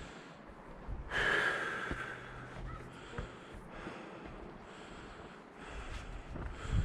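A person breathing hard and audibly, with one loud gasping breath about a second in, as from the exertion of a steep climb.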